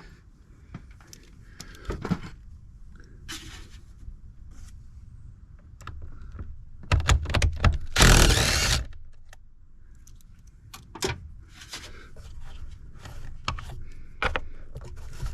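Light metal clinks and handling clatter of tools and parts. In the middle comes one loud burst of about two seconds, the loudest thing, from a small cordless impact running out one of the air-filter housing's 8 mm bolts.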